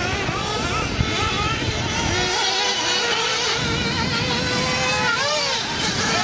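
Several 1/8-scale nitro RC buggy engines revving up and easing off, overlapping whines rising and falling in pitch as the cars race. A short knock comes about a second in.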